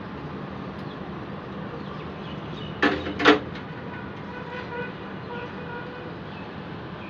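Steady outdoor traffic background noise, with two short loud pitched blips close together about three seconds in.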